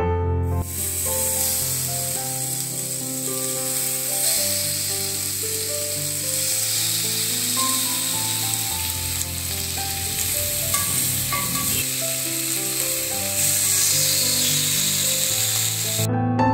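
Masala-marinated pomfret steaks sizzling in oil on a hot cast-iron grill pan as they are laid on; the steady sizzle starts about half a second in and cuts off suddenly near the end. Background piano music plays underneath.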